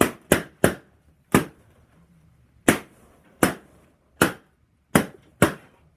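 Balloons being popped one after another: about nine sharp bangs, unevenly spaced, with a few quick ones close together at the start and the rest a second or so apart.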